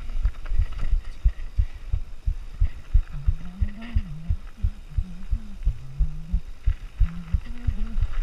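Downhill mountain bike running over a rough trail: rapid, irregular low thumps and knocks as the bike and its mounted camera take the bumps. From about three seconds in, a low wavering tone comes and goes over the thumping.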